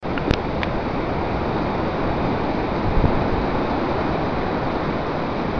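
Steady rushing noise of rough surf breaking along a sea wall, mixed with wind buffeting the microphone. A few faint clicks in the first second.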